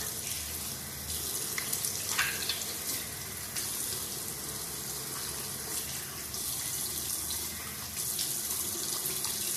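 Running water, with handfuls splashed onto the face to rinse off a soapy face wash. The splashing swells and eases several times.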